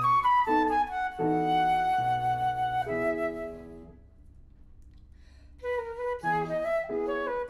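Concert flute and grand piano playing a classical piece: a flute melody over piano chords. About four seconds in, the music dies away into a short pause, and it starts again a second and a half later.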